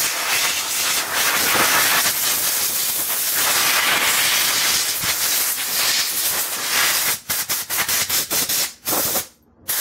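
A steady, loud hissing jet of spray blasting grime off a small engine sprocket. Near the end it breaks into a few short blasts, then cuts off.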